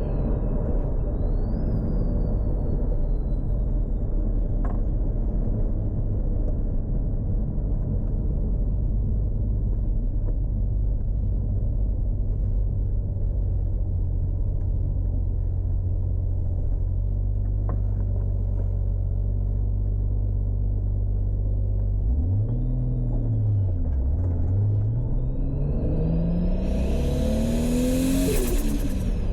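Toyota Supra Mk4's turbocharged 2JZ straight-six running steadily at low revs. Its pitch dips and recovers a little past two-thirds through. Near the end it revs up under acceleration with a loud rushing turbo hiss.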